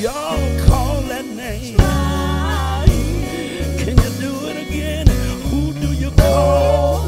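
Live gospel band playing: electric guitar, keyboard, bass guitar and drum kit in a slow groove, with a drum hit about once a second and a singer's wavering voice over it.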